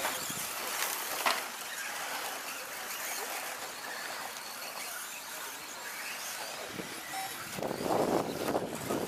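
Radio-controlled 2WD short course trucks racing on a dirt track: a steady noisy hiss of motors and tyres on dirt, swelling louder near the end as a truck comes close.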